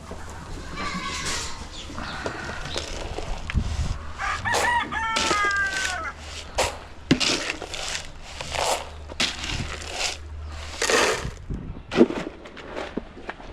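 A rooster crowing once, about four and a half seconds in, among chickens making a string of short clucking calls.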